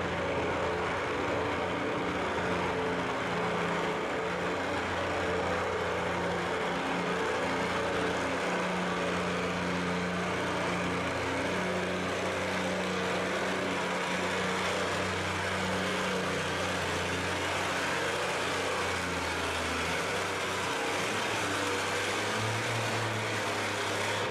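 Oliver farm tractor's engine running hard under a steady heavy load as it pulls a weight-transfer sled, one constant engine note over a broad roar. The engine note shifts about twenty seconds in.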